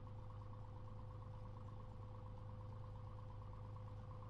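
Cessna 182's piston engine and propeller running steadily in flight, heard from inside the cabin: a steady low hum with a steady higher tone over it.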